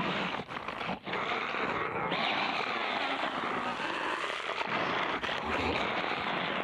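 Loud, steady rushing noise with no clear pitch, briefly dipping about half a second and a second in: a soundtrack sound effect.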